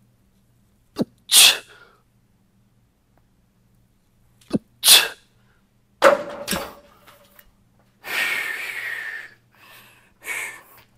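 Short, sharp hissing exhalations forced out on the lifts of a barbell overhead press, two of them about three and a half seconds apart. About six seconds in there is a sudden metallic clank with a brief ring as the barbell goes back onto the rack, followed by a longer hissing breath and one more short breath.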